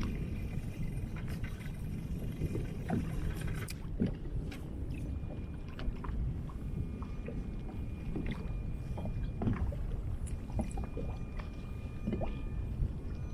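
Water sloshing against a fishing kayak's hull on the ocean, with a steady low rumble of wind on the microphone and scattered small knocks and clicks throughout.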